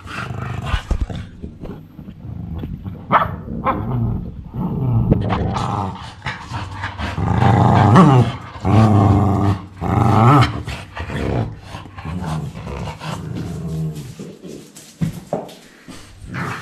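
Small curly-coated white dog grumbling and barking in a long run of drawn-out, growly vocalisations, loudest in the middle: an indignant protest.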